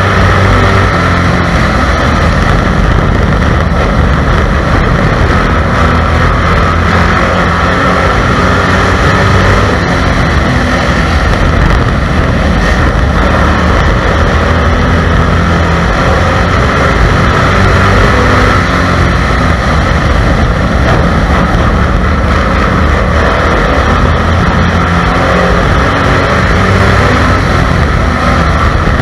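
Stock car's race engine running hard at racing speed, heard loud and steady from on board the car.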